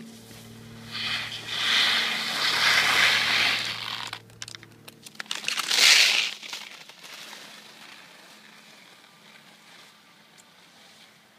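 Skis scraping over packed snow as a skier turns and passes close by, loudest about six seconds in, then fading away.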